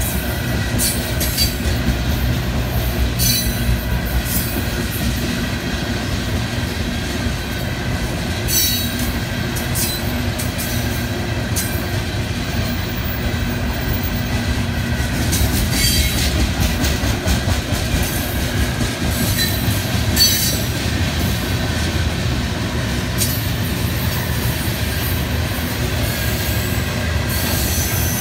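Freight cars of a Florida East Coast Railway train rolling past at a grade crossing: a steady low rumble of wheels on rail, with short high-pitched squeaks from the wheels now and then.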